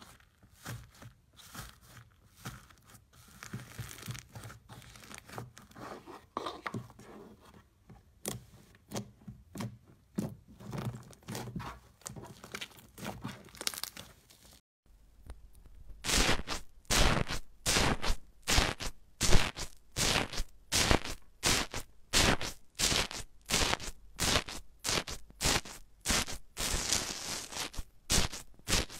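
Slime being worked by hand: soft, quiet squishing as pink slime is pressed and kneaded. After a short silence about halfway, a spoon stirs airy, bubbly slime, much louder, in sharp sticky strokes nearly twice a second.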